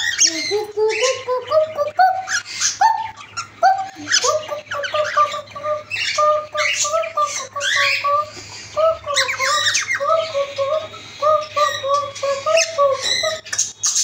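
Pet cockatiels chattering in a rapid series of short chirps and squawks, several rising in pitch, one after another.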